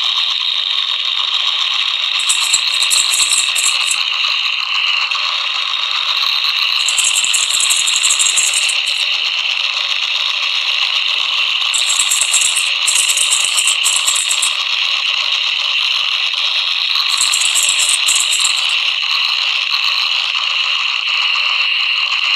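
Instrumental passage of a song with no vocals: a steady, thin, trebly sound with no bass. Bursts of shaker-like rattling come in every four to five seconds.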